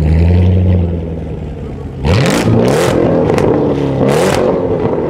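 Chevrolet Corvette C7 Z06's supercharged V8 through a Capristo exhaust, pulling away hard. A low drone holds for the first second, then about two seconds in the revs climb sharply and rise and fall through the gears, punctuated by several short, sharp cracks.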